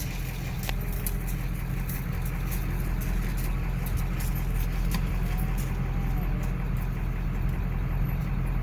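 Pickup truck engine running steadily with a low hum, heard from inside the cab. A cow moos faintly about five seconds in.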